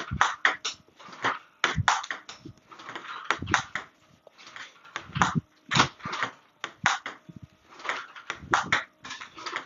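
Table tennis ball clicking off the table and the rubber-faced paddle in a quick, irregular run of knocks as a player loops ball after ball.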